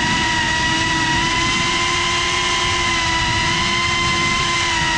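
GePRC Cinelog35 cinewhoop's brushless motors and ducted propellers whining steadily while it hovers and drifts slowly, heard from its onboard GoPro. The pitch wavers only slightly, over a steady rush of prop wash.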